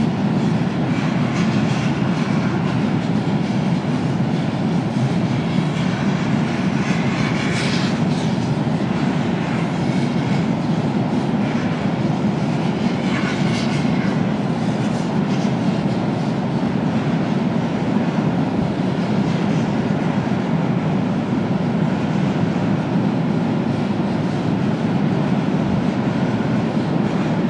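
Freight train crossing a steel truss railway bridge: a steady low rumble, with brief bursts of higher metallic clatter about seven and thirteen seconds in.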